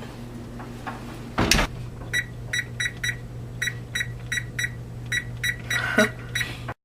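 A kitchen oven door shuts with a thud, then the oven's control panel gives a string of more than a dozen short electronic beeps at uneven spacing as its buttons are pressed to set it, over a low steady hum. The sound cuts off abruptly near the end.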